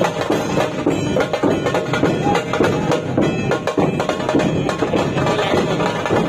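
Dhol-tasha pathak playing: barrel dhol drums and tasha drums beat a fast, dense, unbroken rhythm, loud throughout.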